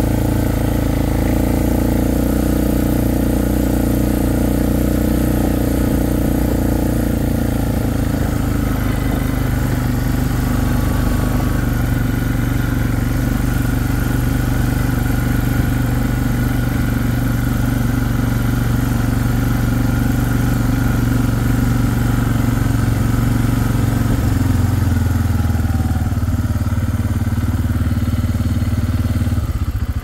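Four-wheeler (ATV) engine running steadily while riding along, its note dropping lower near the end as it eases off.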